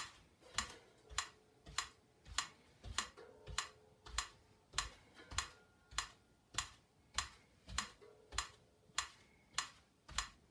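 Metronome clicking steadily at about 100 beats a minute, one sharp tick every 0.6 seconds, keeping time for cymbal flip-up and flip-down drill.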